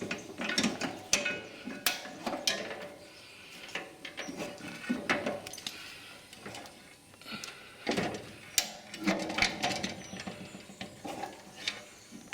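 Irregular clicks, clunks and knocks of parts and tools being handled during hand work on a ride-on mower.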